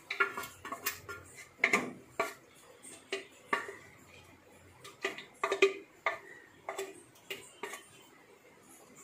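Metal spatula scraping and clinking against a tilted cooking pot as chunks of duck curry with potato are pushed out into a pan. The sharp clinks and knocks come irregularly, thicker in the first half and sparse near the end.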